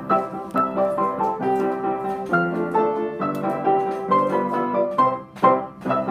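Piano played in a lively, steady rhythm, with notes struck several times a second.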